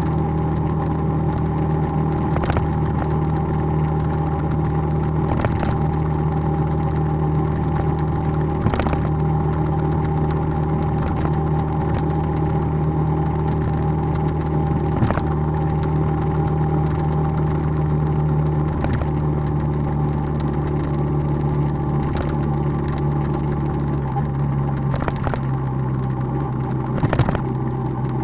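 Motorbike engine running steadily at cruising speed, heard from on board, with occasional light knocks. Its note drops lower in the last few seconds.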